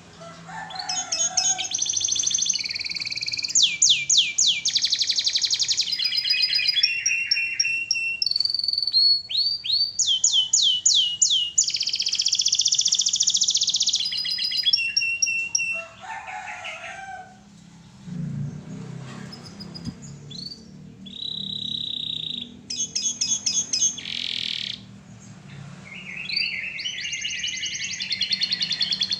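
Domestic canary in full song, running through fast trills and rapidly repeated high notes in phrase after phrase. It eases into shorter, sparser phrases past the middle, then picks up again near the end.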